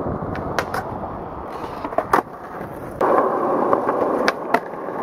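Skateboard wheels rolling steadily, broken by sharp clacks of the board: a pair under a second in, a louder pair about two seconds in, and two more near the end. The rolling gets louder about three seconds in.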